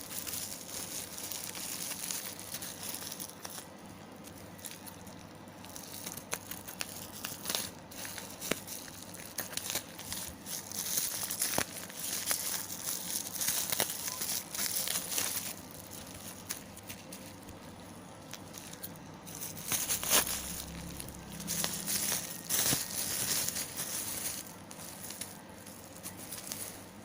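Plastic packaging crinkling and rustling in the hands as soft fishing lures are unpacked, coming and going in bouts with scattered clicks and taps.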